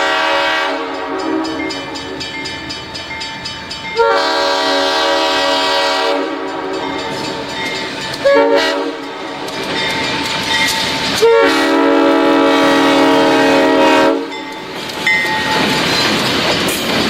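Multi-chime train horn sounding a chord in several blasts: one stepping louder about four seconds in, a short one near the middle and a long one ending about fourteen seconds in. After that comes the rumble and clatter of the passing train.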